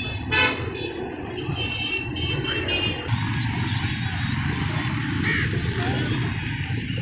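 Steady road traffic rumble with vehicle horns: a loud short toot about half a second in and a held horn tone between about one and a half and three seconds. A brief bird call comes about five seconds in.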